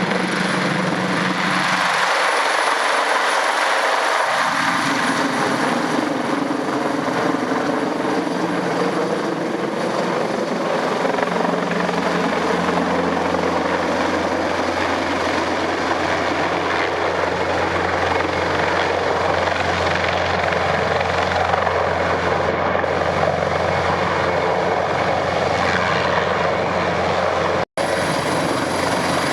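Airbus H225M Caracal helicopter running close by: a loud, steady rotor and turbine noise with a deep hum. The sound breaks off for an instant near the end.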